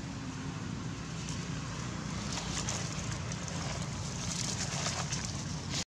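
Dry fallen leaves rustling and a plastic bottle crackling as a baby macaque scrambles over the leaf litter with it, loudest from about halfway through, over a steady low hum.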